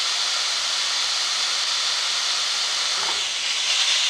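Vegetables sizzling steadily in a hot frying pan. About three seconds in there is a light knock, then a louder uneven scraping rattle as the pan is lifted off the burner.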